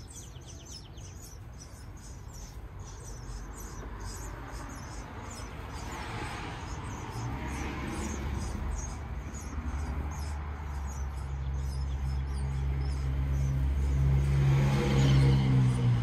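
Nestling birds in a porch nest cheeping, a rapid run of short high calls that goes on steadily. From about six seconds in, a low engine hum, typical of a passing road vehicle, grows louder and is loudest near the end.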